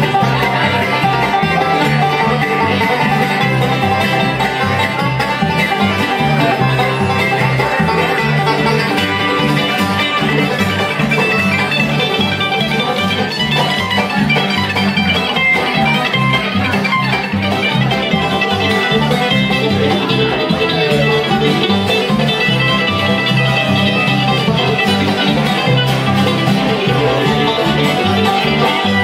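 Live bluegrass band playing an instrumental passage: banjo picking over acoustic guitar and upright bass, with fiddle and mandolin in the ensemble.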